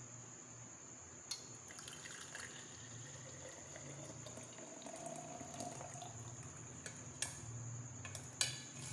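Hot tea poured into a glass jar: a faint steady trickle whose pitch rises as the jar fills, with a few sharp clicks of the vessel in between.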